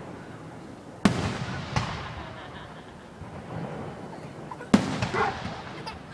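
Aerial firework shells bursting: a sharp boom about a second in, a smaller bang just after, and another sharp boom near the five-second mark, each followed by a long fading rumble.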